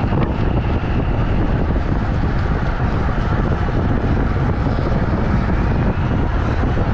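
Steady rush of wind buffeting the action camera's microphone as the bicycle races along at speed.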